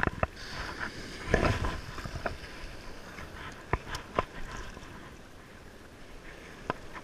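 Small surf waves washing up on a sand beach, with a louder surge of water about a second in, and a few sharp clicks scattered through.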